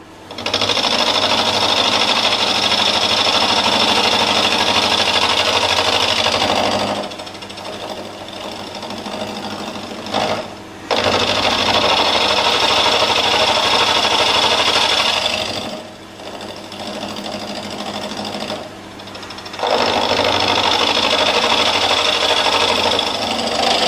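End mill on a milling machine cutting a cast iron engine part held in a vise: a loud, steady cutting noise in three long stretches, dropping twice to a quieter running sound between cuts.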